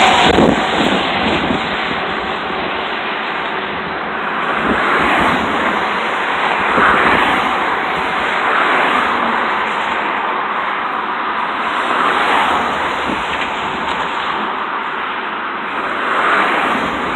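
Combine harvester running steadily while harvesting rice: a loud, even machine noise that swells and eases every few seconds.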